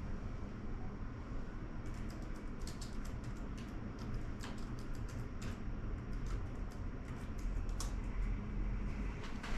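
Scattered light clicks and taps from small hand tools and parts being handled on an opened laptop, over a steady low hum.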